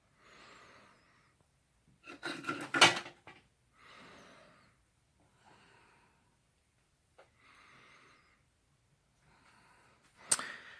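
Soft, wheezy breathing close to the microphone, one breath every second or two, with a short cluster of knocks and rattles about two to three seconds in and a sharp click near the end.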